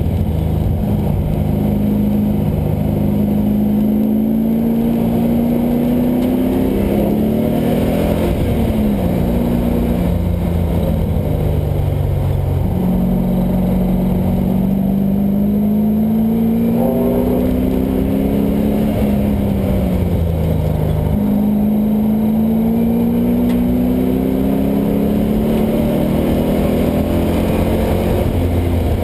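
GM LS1 5.7-litre V8 in a swapped Mazda Miata at full load on track, engine note rising and falling as the revs climb and drop. Sudden steps in pitch about 13 s and 21 s in mark gear changes.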